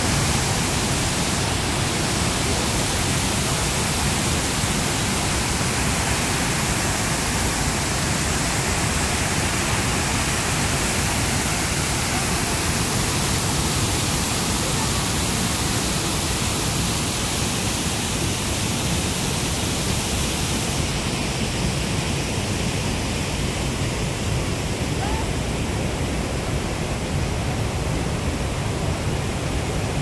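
Waterfall pouring over a stone weir into a pool, a steady, dense rush of falling and churning water; the hiss softens a little in the last third.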